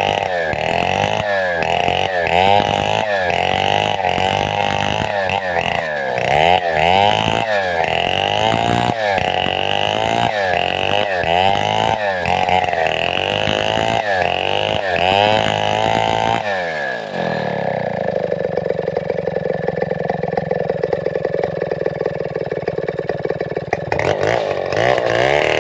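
Large two-stroke chainsaw, a Stihl 070-type (New West 707), revving up and down over and over, about once a second. About two-thirds of the way through it drops to a steady idle, then revs up again near the end.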